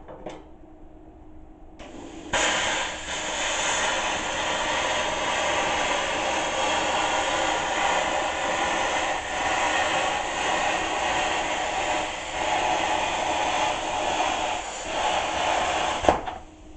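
Plasma cutter cutting metal: a steady, loud hiss of air and arc starts about two seconds in and runs for about fourteen seconds. It stops with a click near the end as the trigger is released.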